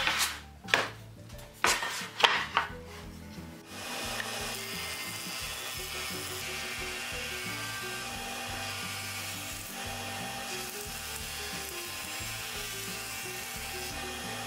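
A few loud wooden knocks as a long board is handled, then from about four seconds in a jointer runs steadily, planing the edge of a yellow poplar board fed along its fence.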